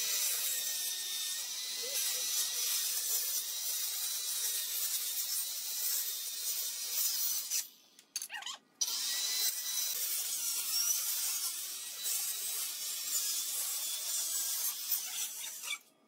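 Handheld circular saw cutting through the wooden slats of a pallet, a steady harsh sawing noise. It drops out twice, briefly, about halfway through.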